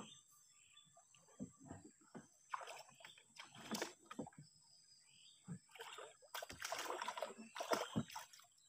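Hooked baung catfish splashing and thrashing at the water surface beside a wooden boat as it is hauled in on a longline. Irregular splashes come at first, growing denser and louder over the last couple of seconds.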